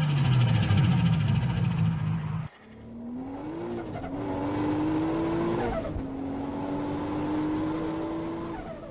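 Turbocharged car engine running at high revs with a steady note that cuts off abruptly about two and a half seconds in; then an engine accelerating, its pitch climbing steadily, with a short drop about six seconds in before it climbs again.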